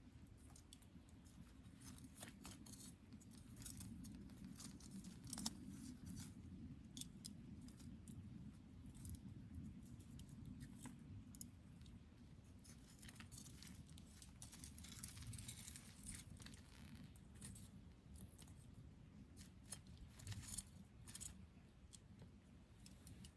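Wood campfire crackling, faint: scattered small pops and snaps over a low steady rumble.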